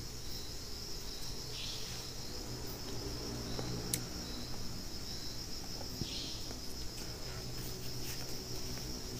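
Crickets chirring steadily at a high pitch, with a low engine-like hum that comes and goes and grows near the end, and two short falling calls about four seconds apart.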